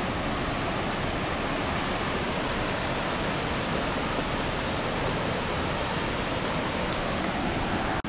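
Waterfall: a steady, even rush of falling water.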